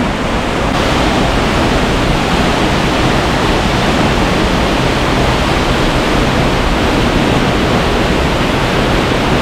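Waterfall rushing, a loud, steady wash of falling water close to the microphone. It turns brighter and hissier about a second in.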